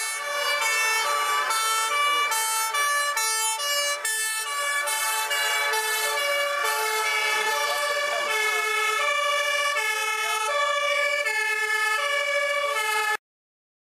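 Several fire engine two-tone sirens sounding at once, each alternating between a high and a low note, overlapping out of step with one another. The sound cuts off suddenly near the end.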